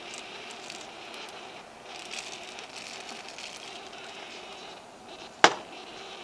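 Wood campfire crackling, with small snaps throughout and one loud sharp pop near the end.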